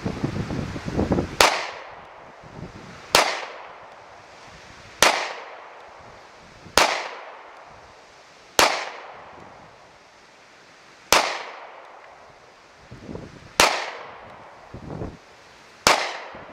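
Beretta Nano 9mm subcompact pistol fired eight times at a slow, steady pace, about one shot every two seconds, each shot trailing off in a short echo. Gusts of wind rumble on the microphone between the shots.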